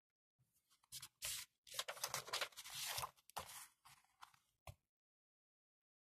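Hands handling a self-inking date stamp and a paper pad close to the microphone: faint rustling and crackling with scattered small clicks, starting about a second in and stopping before the fifth second.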